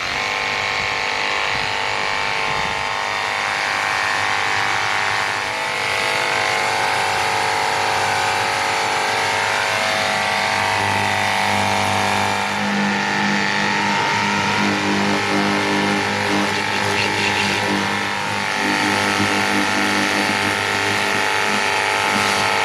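Ontel Turbo Jet HydroX5 Pro 21V cordless pressure washer running on its turbo setting with the trigger held: a steady, loud electric motor-pump whine made of several tones over the hiss of the water spray.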